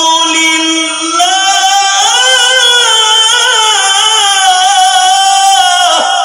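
A male qari's voice chanting a Quran recitation (tilawat) in the melodic style, holding long, ornamented notes through a microphone and PA. After a short break about a second in, one long phrase, which breaks off just before the end.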